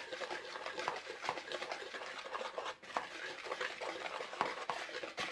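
Wire whisk stirring a bowl of dry baking ingredients (flour, leavening and spices), with quick, irregular clicks and scrapes of the wires against the bowl.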